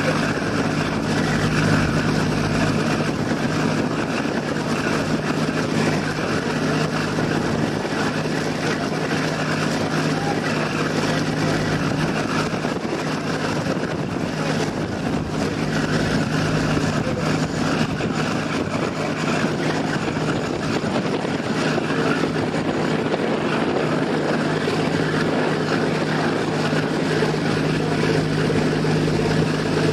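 Ferry's engines running with a steady low drone under a constant rushing noise.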